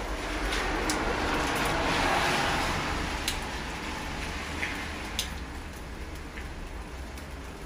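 Steady rain falling, with a vehicle passing on the wet street: its tyre hiss swells to a peak about two seconds in and fades away over the next few seconds. A few sharp raindrop ticks land close by.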